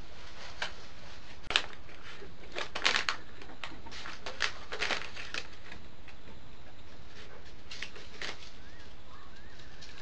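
Short scratches and taps come at uneven intervals, thickest between about two and five and a half seconds in, over a steady hiss: a honey badger's claws on wooden deck boards as it forages, heard through a trail camera's microphone. A single sharp click comes about a second and a half in.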